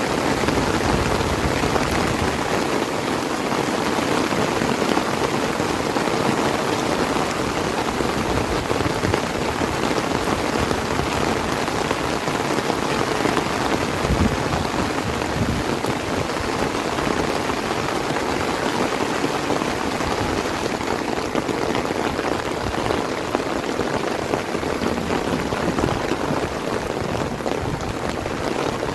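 Steady heavy rain falling and pattering on surfaces, a dense even hiss with no let-up.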